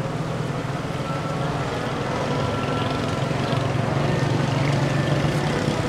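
Hot oil bubbling and sizzling in a large karahi of frying pakoras, over a steady low hum.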